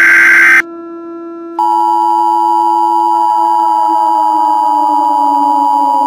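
Emergency Alert System tones. The last SAME header data burst, a harsh digital screech, cuts off about half a second in. About a second later the steady two-tone attention signal begins and holds. Under it runs a low drone that slowly falls in pitch.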